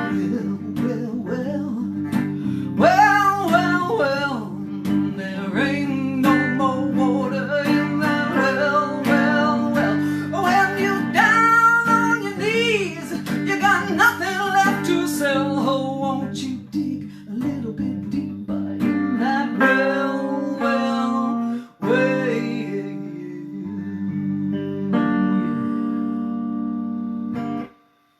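A woman singing with strummed acoustic guitar. For the last ten seconds or so the voice drops out and the guitar chords go on alone, then stop abruptly just before the end.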